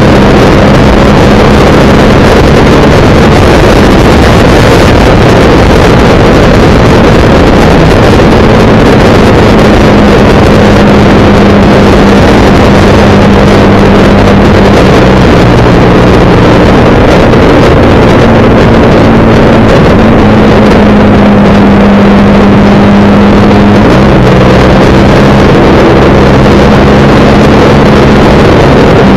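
Motorcycle engine running at road speed under heavy wind rush on the microphone, very loud. The engine note steps up and down a few times as the throttle changes.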